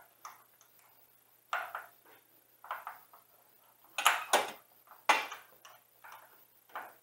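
Metal tools and car parts being handled and set down: a string of light clinks and knocks, about seven, the loudest a little past halfway.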